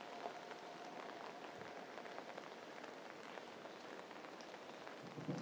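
Steady tropical rain falling on pavement and puddles, with scattered drip ticks, as a heavy downpour begins to ease.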